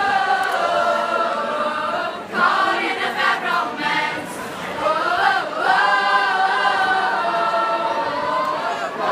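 A choir of school students singing together in long held notes, with a quicker, more broken passage in the middle.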